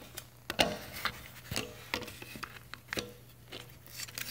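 Irregular light clicks and knocks of a rigid plastic phone-case belt clip being handled against a glass tabletop, the sharpest about half a second in.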